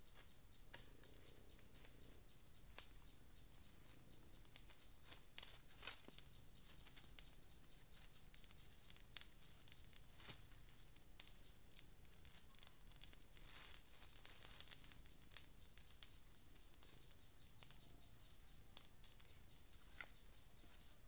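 Faint, scattered crackles and rustles from a small wood campfire being tended by hand, with dry twigs and leaves handled around it. The sharp clicks come mostly in the middle of the stretch.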